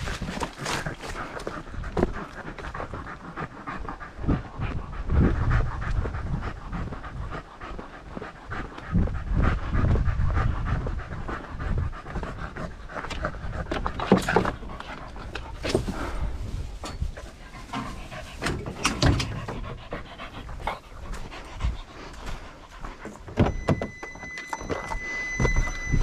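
Hunting hound panting hard, winded from running deer on a dog drive.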